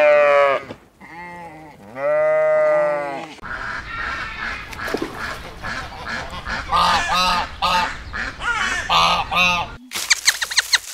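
Sheep bleating with two long calls, then ducks calling on the water in many short quacks in quick groups. Near the end comes a fast run of sharp clicks.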